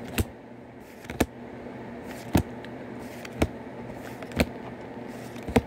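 Weiss Schwarz trading cards being flipped through one by one in the hand, each card giving a sharp click, about one a second, over a steady low hum.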